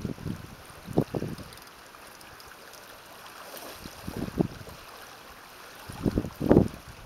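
Steady hiss of wind on the microphone and small waves lapping at the shore, broken three times by short bursts of people talking.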